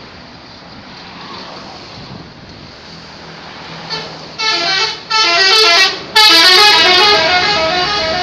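Traffic noise with a vehicle engine, then a bus's telolet horn, a multi-tone musical horn, plays quick runs of stepping notes about four seconds in: two short blasts and then a longer third one.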